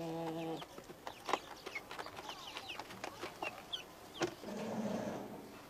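Chicks cheeping in short high chirps among a hen's clucks and scratching clicks. A low drawn-out call at the start breaks off about half a second in.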